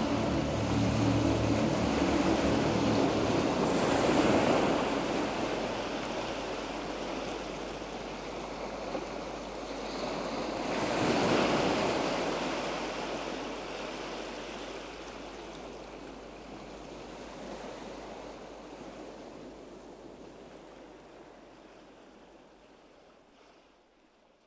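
A rushing noise like surf, swelling twice, about 4 and 11 seconds in, then fading slowly away to silence. The last notes of background music die away in the first few seconds.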